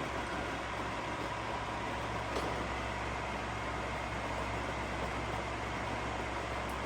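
Novisa radial arm drill running with its spindle turning and power feed engaged at maximum feed rate: a steady mechanical hum with a faint whine, and a single brief click a little over two seconds in.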